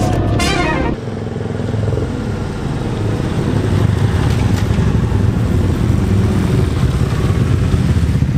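Two adventure motorcycles running along a lane, their engines growing louder as they approach and the nearer one passes close by. Background music cuts off about a second in.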